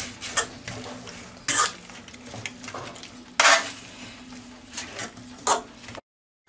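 Sliced onions and tomatoes being stirred around in a metal roasting tray, with a few scrapes and clinks against the tin. The loudest comes about three and a half seconds in, and the sound cuts out briefly at the end.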